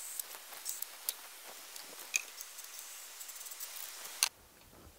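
Light scraping and scratching with many small irregular clicks from hand work against a painted steel roof rib inside a bare van. A sharp click comes about four seconds in, and then the background noise drops away.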